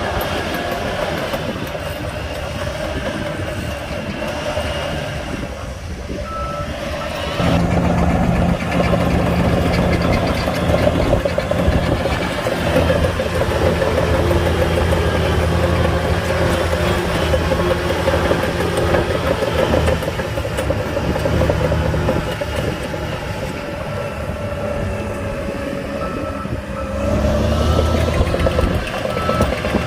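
Heavy diesel earthmoving machinery running under load. The engine note steps up louder about seven seconds in and holds, easing off briefly twice before rising again near the end.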